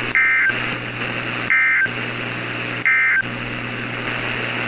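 Emergency Alert System end-of-message code: three short bursts of SAME digital data tones, each about a third of a second long and about a second apart, closing the alert, over the steady hiss and hum of the weather radio.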